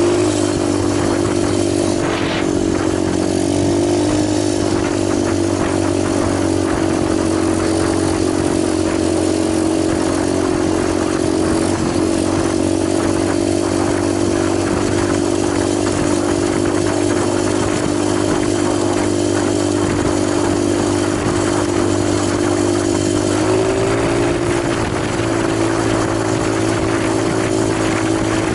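Italjet 125cc pit bike engine running steadily at idle, its pitch lifting slightly a few seconds in and again near the end.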